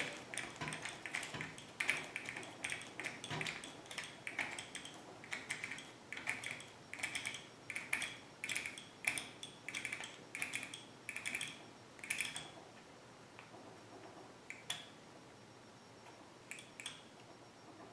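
Side-tension dial on a Feather Ridge small hand jig being turned by hand, giving faint short clicks a few times a second, as the latex reeds of a turkey mouth call are stretched tight. The clicking stops about twelve seconds in, and a few scattered clicks follow near the end.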